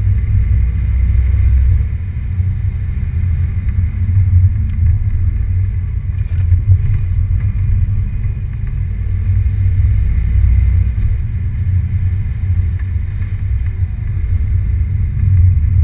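Ford Capri's engine and drivetrain heard from inside the cabin while it is driven on track, a continuous low rumble that rises and falls with the throttle.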